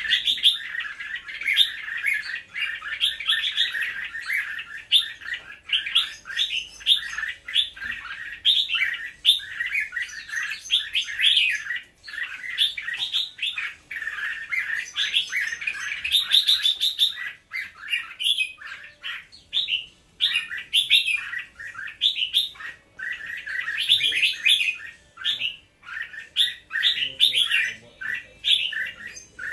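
Caged red-whiskered bulbul singing: a continuous run of quick, bright chirped and whistled phrases, with a few short pauses.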